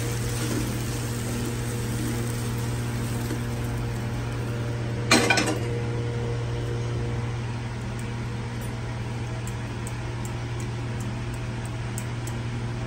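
Cookware being handled as cooked food is tipped from a non-stick kadai into a steel bowl. One loud metal clank comes about five seconds in, and faint light ticks of a spatula against the bowl follow. A steady low hum runs underneath.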